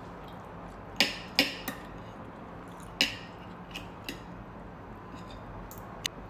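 Sharp clinks of cutlery against a plate: two loud ones about a second in, another near the middle, and a few fainter taps after.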